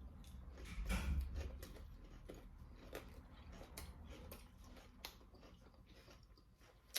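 A person chewing a mouthful of pan-fried pork with greens close to the microphone: faint, irregular mouth clicks and smacks, a little louder about a second in.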